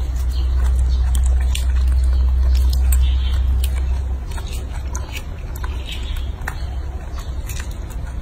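A baby macaque biting and chewing peeled longan fruit close to the microphone: a scatter of small clicks and smacks. A loud, low, steady rumble runs underneath and stops about four seconds in.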